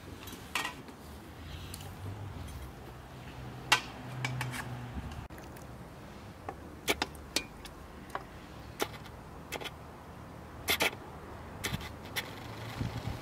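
Scattered sharp clinks of a metal ladle and spoons against an aluminium pot and ceramic soup bowls, about a dozen in all, over a faint low hum.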